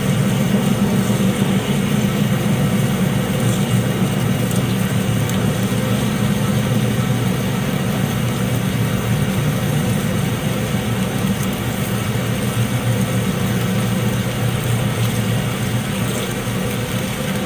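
Acra metal lathe running steadily while a large coolant-fed drill bit, about 2¼ inch, drills out a sleeve blank: an even machine hum with cutting noise that holds level throughout.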